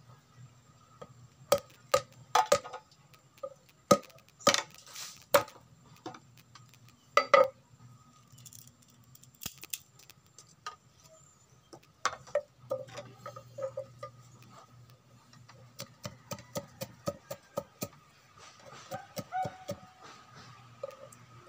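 Machete blade knocking, chopping and scraping on a green bamboo branch against a wooden stool top. It gives a handful of sharp knocks in the first several seconds, then a long run of quicker, lighter clicks and scraping strokes.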